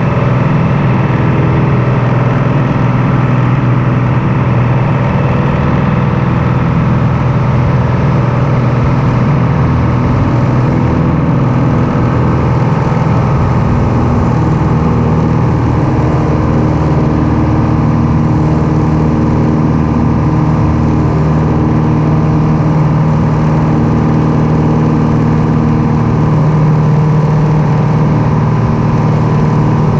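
Light aircraft piston engine running steadily, a loud, even drone, its tone shifting slightly about halfway through.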